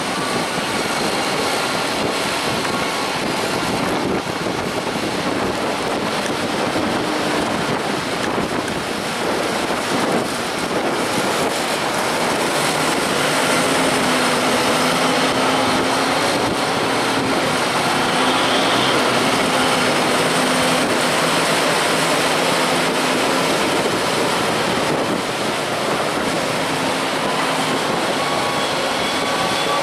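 Tractor engines running steadily while a tipping trailer unloads grass silage, its body raised on the hydraulic ram. The engine sound grows a little louder partway through, with a held tone in the middle stretch.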